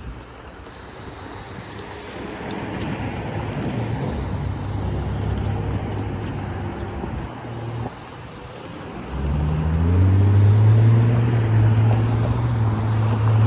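Road traffic crossing the tracks: cars drive past one after another, with engine and tyre noise that swells and fades. About nine seconds in, a steady low drone with rising overtones comes in and stays loud.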